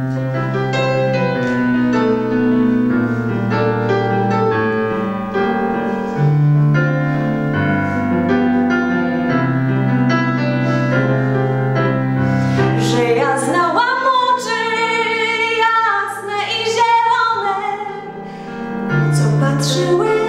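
Instrumental break of a ballad's backing track: piano with sustained chords and a bass line. A lead melody line comes in about two-thirds of the way through.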